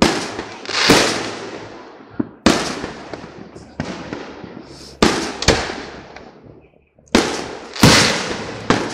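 Aerial fireworks shells bursting overhead: about nine sharp booms in quick succession, each trailing off in a rumbling echo. The loudest come about a second in and near the end.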